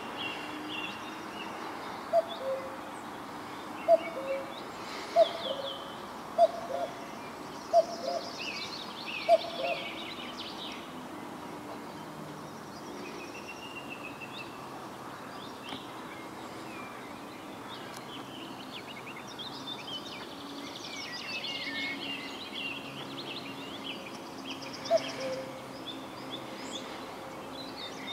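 Common cuckoo calling its two-note, falling 'cu-coo' six times, about a second and a half apart, then once more much later. Other small songbirds sing higher-pitched phrases in the background throughout.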